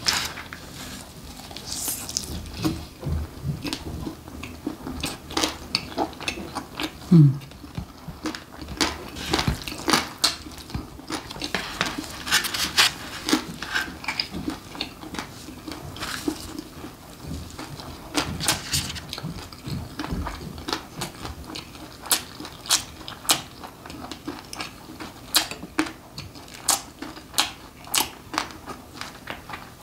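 Close-miked eating sounds: chewing and wet mouth noises on braised pig's trotters and noodles, with many sharp clicks of metal utensils against the bowl and tray. A brief hum falling in pitch about seven seconds in is the loudest moment.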